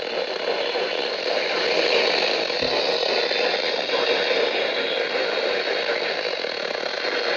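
Steady hiss of radio static from a receiver, even and unbroken, with no tones or clear words.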